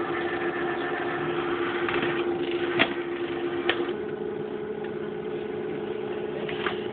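MakerBot Thing-O-Matic 3D printer's stepper motors humming steadily as the machine moves into position to start printing. The pitch of the hum changes about four seconds in, and there are two sharp clicks shortly before that.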